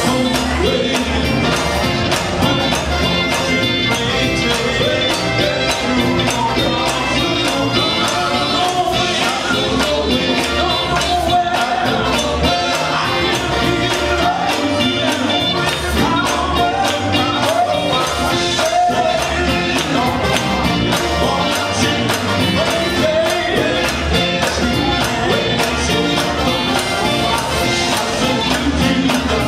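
Live gospel band playing: men's voices singing over electric guitars, bass and a drum kit keeping a steady, busy beat.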